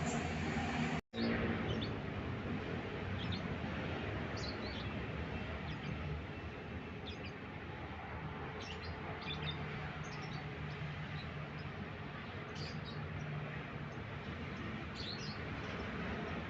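Lovebird giving short, high chirps every second or so over a steady background hiss and rumble.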